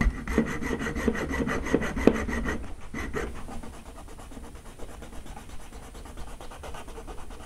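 Junior hacksaw cutting through a thin clear plastic rod with quick back-and-forth strokes. The strokes stop about three seconds in, leaving quieter scraping and handling of the rod.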